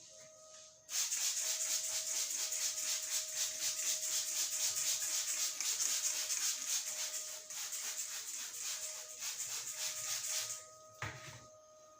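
Fast, dense rustling scratch of hands rubbing vigorously through hair and scalp during a head massage. It starts about a second in and stops about ten and a half seconds in, over faint steady background music tones, with a single dull knock just after it ends.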